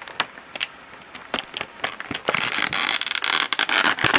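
Hands working a clear plastic Funko Pop display disc free from its packaging: scattered clicks and taps, then a denser stretch of plastic rustling and scraping over the second half.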